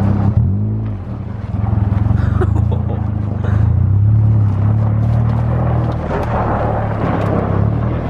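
Car engine running steadily at low revs while towing another car through snow, its pitch dipping briefly about half a second in.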